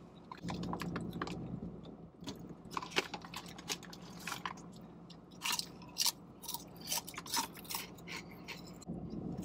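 Mouth-close crunching and chewing of ghost pepper potato chips, a string of irregular crisp crunches.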